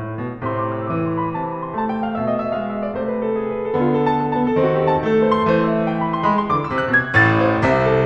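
Background piano music, rising a little in level near the end.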